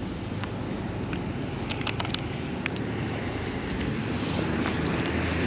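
Steady city street noise of traffic on a snowy road, with wind on the microphone. A few small sharp clicks come about two seconds in, and a low rumble swells slightly near the end.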